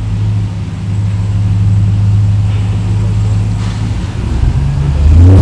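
Ram TRX's supercharged 6.2-litre V8 running with a steady low note, then picking up revs about four seconds in.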